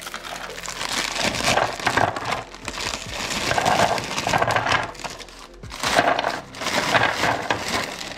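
Crinkling plastic Oreo biscuit wrapper being handled and shaken in several bursts, as the cookies slide out onto a plastic tray.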